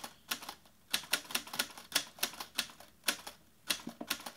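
Typewriter sound effect: keys clacking in a quick, fairly even run of about four or five strikes a second.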